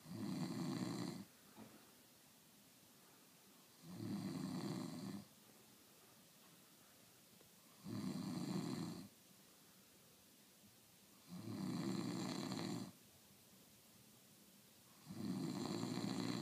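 A sleeper snoring loudly and regularly: five snores, each lasting just over a second, about every four seconds.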